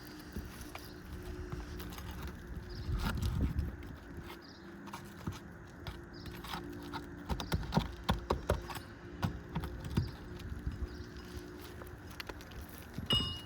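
Irregular knocks and taps of hand work on an asphalt shingle roof while a damaged shingle is being pried loose, clustered in a quick run about seven to ten seconds in.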